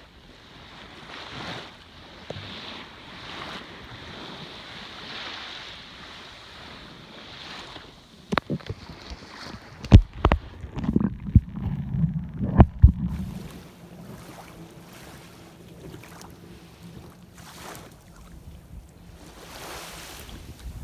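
Muffled sloshing and rushing of shallow sea water around a camera held under the surface. Partway through comes a run of loud knocks and bumps, then a steady low hum.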